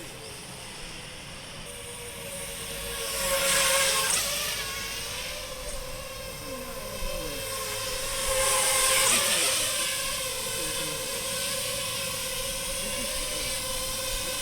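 Quadcopter drone's propellers and motors whining, a steady hum with overtones that wavers in pitch, swelling louder twice, around four and nine seconds in.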